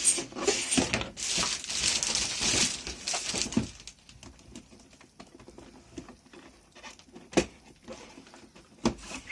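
A product box and its packaging being opened and handled: a few seconds of loud rustling and scraping, then quieter handling with two sharp knocks near the end.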